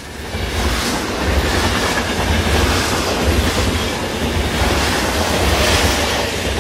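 Loud, dense rumbling roar with a heavy low end that swells and eases several times.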